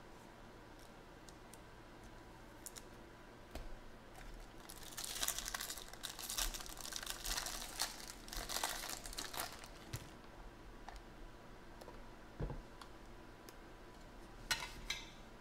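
A trading card pack's foil wrapper being pulled open and crinkled by hand. There is a dense run of crinkling lasting about five seconds, with a few light clicks before it and a short crinkle again near the end.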